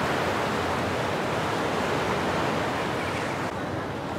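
Fast-flowing canal water rushing through the raised gates of a head regulator, a steady rushing noise that grows a little softer near the end.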